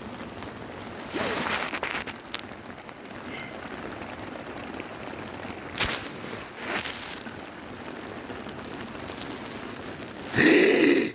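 Heavy rain falling steadily, an even hiss, with a few brief louder noises and a short loud pitched sound just before the end.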